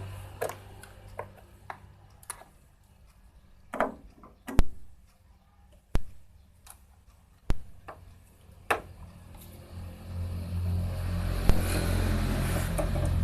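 Scattered sharp clicks and knocks of handling, then from about ten seconds in a steady low hum from the refrigerator's compressor.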